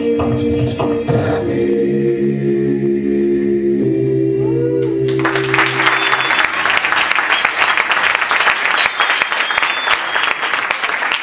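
Choral singing holds long, steady chords, then about five seconds in an audience breaks into applause that drowns the music and carries on.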